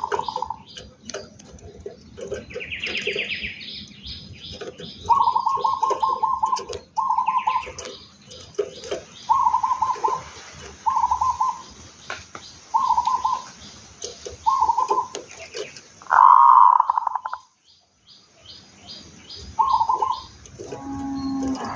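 Zebra dove (perkutut) cooing: short rolling coos repeated every second or two, with one louder, longer coo about sixteen seconds in. This is the perkutut voice type that fanciers call 'bedah karang'.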